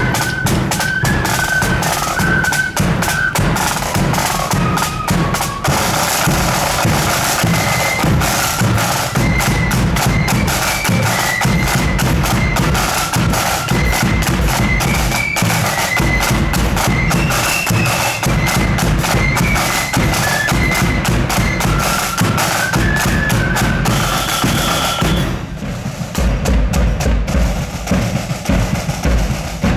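Marching flute band playing a march tune on flutes over snare and bass drums. About twenty-five seconds in, the flutes stop and the drums carry on alone with heavy bass drum beats.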